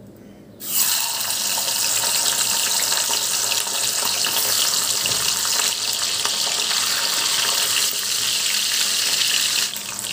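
Katla fish heads dropped into hot oil in a kadai, setting off a sudden loud sizzle about a second in. The frying hiss then holds steady and eases a little near the end.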